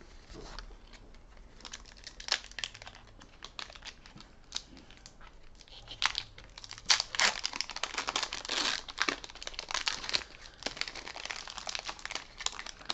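Foil Pokémon booster pack wrapper crinkling and tearing as it is worked open by hand. It gives sparse crackles at first, then denser and louder crinkling from about six seconds in.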